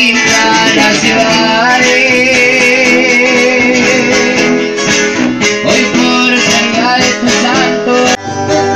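Live sierreño music: strummed and picked guitars over a sousaphone bass line, with a voice singing.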